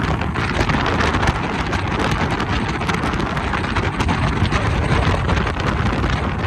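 Wind buffeting the microphone, a dense, steady rush of noise that flutters slightly.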